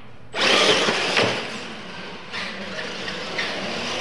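Two radio-controlled monster trucks launching off the start line: a sudden rush of motor and tyre noise on a slick concrete floor, with a thump about a second in.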